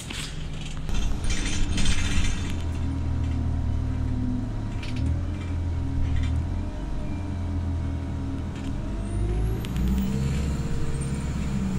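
Bus engine and drivetrain droning from inside the passenger saloon as the bus gets under way. Interior rattles and creaks sound in the first couple of seconds, and a whine rises in pitch near the end.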